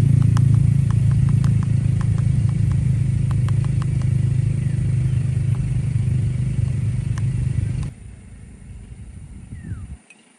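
A motor vehicle running with a steady low drone and a scatter of light clicks and rattles, which cuts off abruptly about eight seconds in, leaving a quiet outdoor background.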